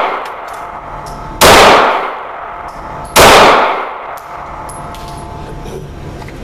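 Glock 19 9mm pistol fired twice, a little under two seconds apart, each shot echoing in an indoor range. The tail of an earlier shot fades out at the start.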